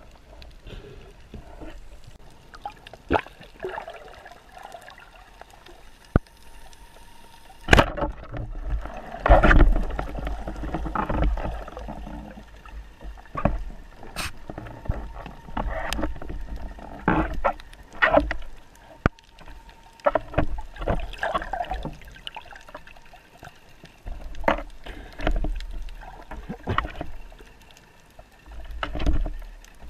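Underwater sound picked up by a camera in its housing: water gurgling and rushing in uneven swells, with a low rumble and several sharp clicks and knocks as the speargun, its shaft and a speared fish are handled.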